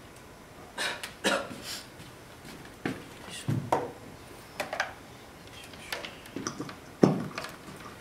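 Wired handheld microphone being handled: scattered knocks, bumps and rustles, the loudest a heavy thump about seven seconds in.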